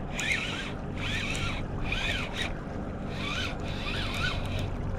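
Spinning reel being cranked in about six short bursts, its whirr rising and falling in pitch with each turn of the handle, as a small fish is reeled in.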